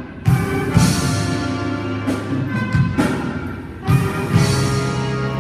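Jazz big band playing a slow ballad: sustained horn chords, with several ringing accents from the drum kit's cymbals.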